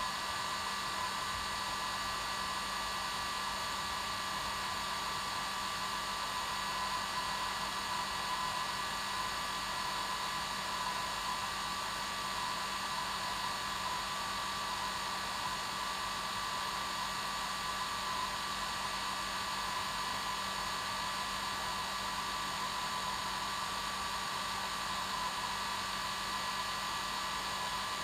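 Hair dryer running steadily at one setting: an even whoosh of air with a constant motor whine and no change in speed.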